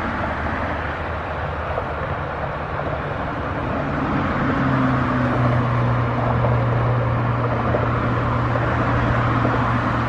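Steady road traffic noise. About four seconds in, a vehicle's low engine drone joins it and holds.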